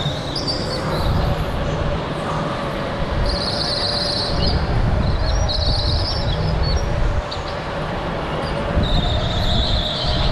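Go-kart running at speed, heard from on board: a steady motor note over a rumble, with the tyres squealing through the corners several times.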